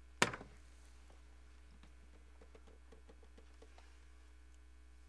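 A sharp click as a refrigerator door opens, followed by a faint steady hum with a few light ticks and rattles.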